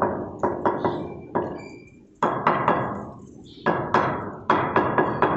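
Hammer tapping granite being set in place: quick runs of sharp strikes with short pauses between runs, each with a slight ring.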